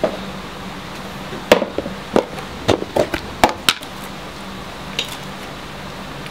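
Sharp clicks and knocks of a plastic food container being set on a table and opened, about ten in quick succession over some two seconds, then one fainter click a little later. A low steady hum runs underneath.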